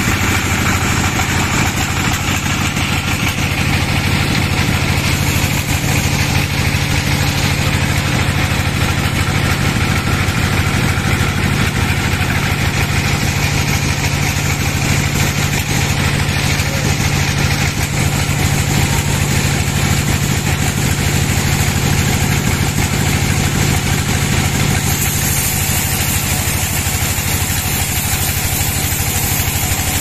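Band sawmill running steadily as its blade rips lengthwise through a log: a constant low machine hum under the hiss of the blade cutting wood.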